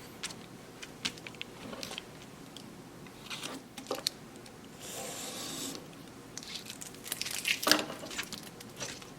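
Scattered workshop handling sounds: short rubs, scrapes and clicks of wood and tools being handled, with a brief hiss about five seconds in and a cluster of louder knocks near the end.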